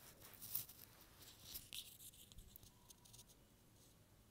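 Faint, occasional scrapes and clicks of a ladle stirring ginger-garlic paste and green chillies frying in oil in a pressure cooker pot, mostly in the first two seconds.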